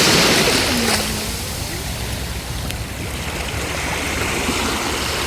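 Rough surf breaking and washing up the beach: a steady rush of waves, loudest at the start, easing off, then swelling again near the end.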